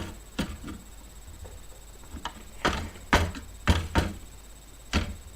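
Hands handling and trying to fit a computer component: a string of sharp clicks and knocks of hard parts against one another, about seven, spaced unevenly.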